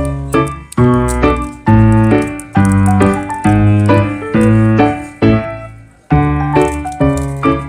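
Background music: a piano or keyboard tune playing chords with a steady beat, pausing briefly about six seconds in before starting again.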